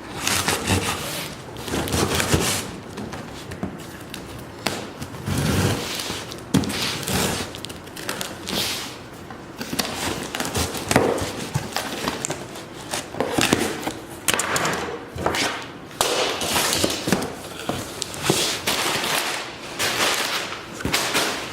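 Cardboard shipping box being cut open with a blade and unpacked: irregular scraping, tearing and rustling with knocks and thumps.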